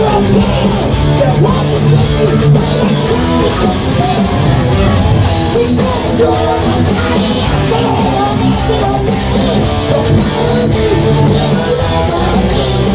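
Live heavy metal band playing an instrumental passage: electric guitars carry melodic lead lines over bass guitar and drums.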